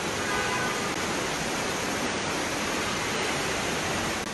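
Floodwater rushing steadily through a flooded underground car park.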